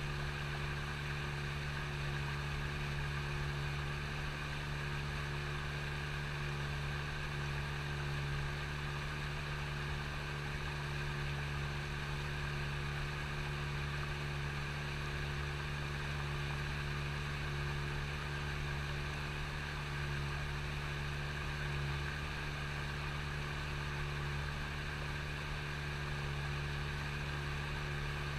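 A boat's motor running at a steady speed, a constant low hum that never changes.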